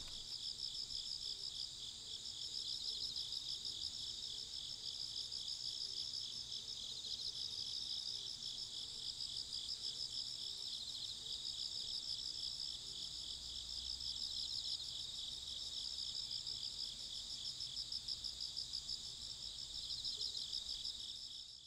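Summer insect chorus: several insects trilling at once, each a steady pulsing trill at its own high pitch, overlapping without a break.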